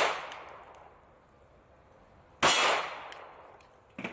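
Two 9 mm gunshots about two and a half seconds apart, fired at a fire-heated steel armor plate, each fading out over about a second. The plate stops the 9 mm rounds. A few light clicks follow near the end.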